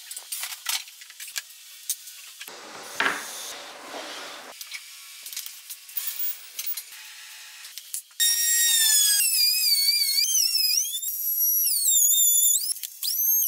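Quiet clicks and tool handling, then about eight seconds in a router table's motor comes on loud with a high whine whose pitch sags and recovers again and again as the bit cuts slots in a board.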